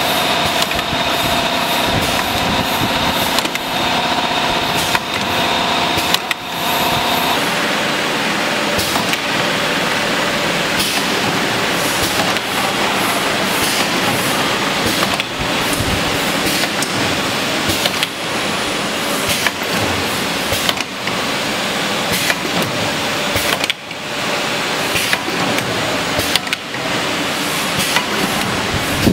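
Semi-automatic rotary tube filling and sealing machine running, with repeated short knocks from its pneumatic cylinders and indexing turntable over a steady mechanical noise. A high steady whine in the background stops suddenly about seven seconds in.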